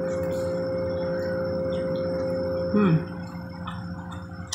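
A steady ringing drone of several held tones, like a singing bowl, ends about three seconds in with a short, loud falling swoop. Faint chewing clicks follow.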